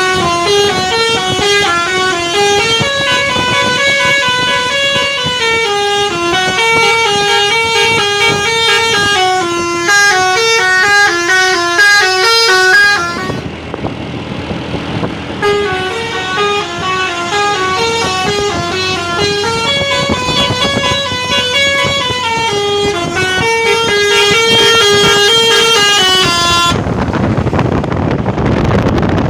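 Bus's Basuri telolet horn, a multi-tone musical air horn, playing a tune of quick stepping notes. It plays for about 13 seconds, breaks off for about two seconds of rushing noise, then plays the tune again. Near the end the horn stops and only wind and road noise remain.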